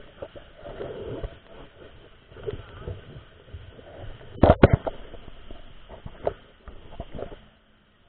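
Handling noise on the camera as it is moved and set in place: rubbing and irregular knocks, with two or three loud sharp knocks a little past the middle. Faint steady water rush runs underneath.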